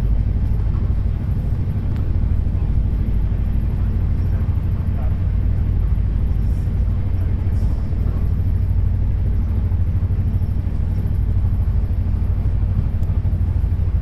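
Passenger train running: a steady low rumble that goes on without a break.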